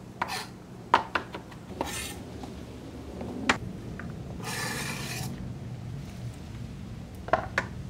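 Chef's knife chopping cilantro on a cutting board, a few quick strokes in the first two seconds. A knock follows, then a rasping scrape about four and a half seconds in as the chopped food is scraped off the board into a ceramic bowl. Two light knocks come near the end.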